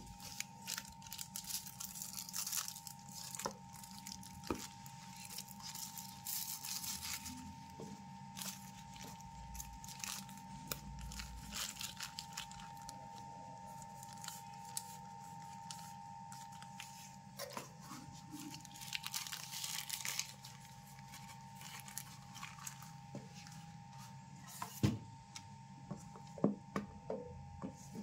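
Thin plastic packaging bag crinkling and rustling as it is handled, folded and opened, with scattered small clicks. A few sharper knocks come near the end, and a faint steady high tone runs underneath.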